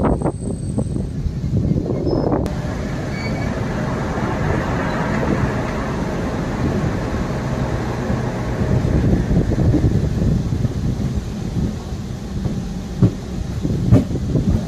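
Diesel-electric multiple unit (DEMU) passenger train running, heard from its open doorway: a steady rumble of the train on the rails, with two sharp knocks near the end.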